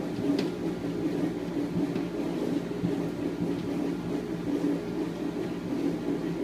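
1968 Frigidaire top-loading dishwasher running, with a steady motor hum and a brief click about half a second in.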